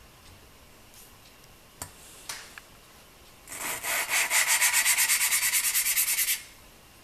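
A KZ650 valve being lapped into its hardened seat with valve grinding compound: a suction-cup lapping stick spun back and forth between the palms makes the compound rasp between valve face and seat in quick, even strokes of about five a second. The rasping lasts about three seconds, starting past the middle, after a few light clicks.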